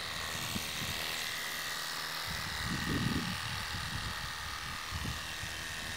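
Xiaomi cordless car washer running, its small electric motor whining steadily while the strong jet of water hisses against a car's bonnet and windscreen.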